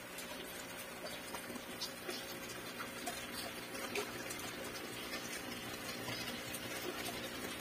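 Aquarium air stone bubbling steadily in a shallow plastic basin of water, with small bubble pops and a faint steady hum underneath.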